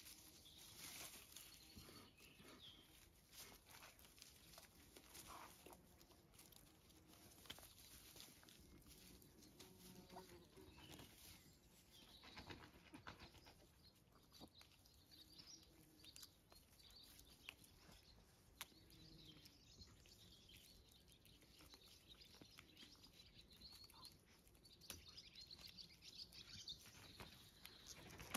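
Faint rustling and crackling of grass stems and a stick as puppies tug and chew at them, with faint birdsong behind.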